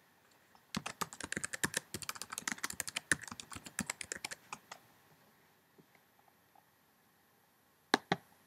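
Typing on a computer keyboard: a quick run of key clicks lasting about four seconds, then two sharp clicks close together near the end.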